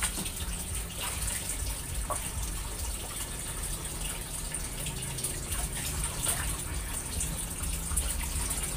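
Steady rushing background noise, with a few light clicks and scrapes of a knife peeling a papaya over a bowl.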